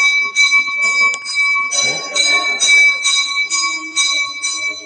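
Temple bell rung rapidly and evenly, about two to three strokes a second, each stroke's ring carrying on into the next.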